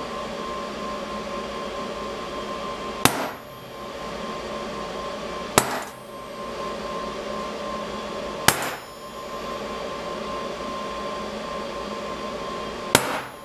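Ball-peen hammer striking a center punch into steel plate four times, a few seconds apart, each strike sharp with a brief metallic ring; this is punching the marked bolt-hole centres before drilling. A steady hum runs underneath.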